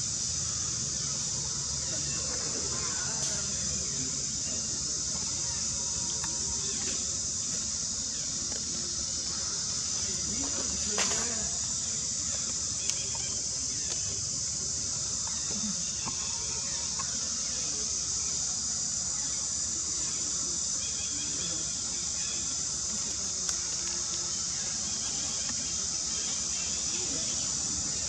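Steady, high-pitched insect chorus droning without a break, with a few faint squeals from young long-tailed macaques, the clearest about eleven seconds in.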